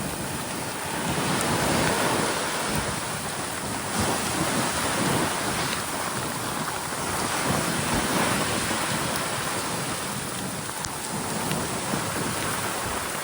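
Steady rain falling together with ocean surf washing in, a dense rushing noise that swells and eases every few seconds.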